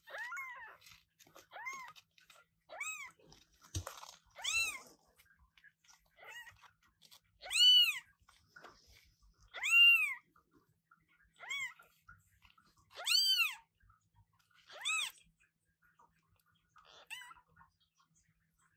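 Newborn British Shorthair kitten mewing over and over: about a dozen short calls a second or two apart, each rising and then falling in pitch, the loudest in the middle stretch.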